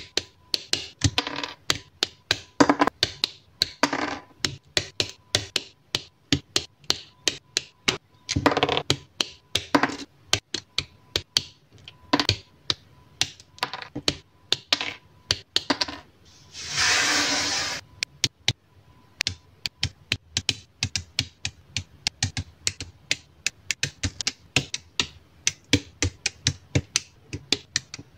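Small plastic model-kit parts being handled and snapped together, a rapid run of sharp clicks several a second with short rubbing scrapes between them. About two-thirds of the way in comes a longer scraping rustle lasting about a second.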